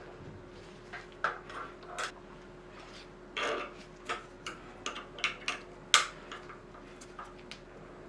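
Hex key clicking and scraping in a bicycle stem's top-cap bolt as it is fitted and turned: a run of irregular sharp clicks with a short scrape about three and a half seconds in, the loudest click about six seconds in.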